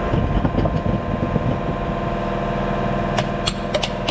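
A steady engine-like hum runs throughout. About three seconds in, a run of quick, sharp taps begins at roughly four a second: a small mallet knocking a transmission filter pipe back into a tractor's rear housing.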